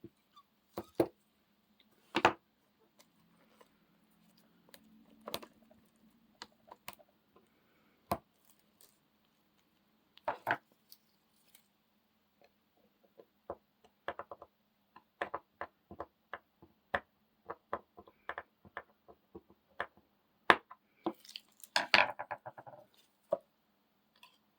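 Irregular clicks, taps and light knocks of small hard parts and tools being handled on a bench. A quick run of ticks comes through the middle, and a louder clatter with a short ring comes near the end.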